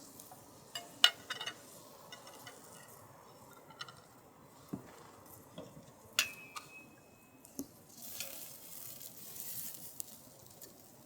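Dishes and cutlery clinking: a few sharp clinks and softer knocks, one clink about six seconds in ringing briefly. A soft hiss runs for about two seconds near the end.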